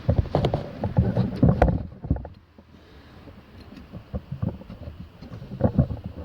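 Clicks, knocks and clinks of brake parts being handled while a front brake caliper is readied for fitting: a quick cluster in the first two seconds, scattered knocks after, and another small cluster near the end.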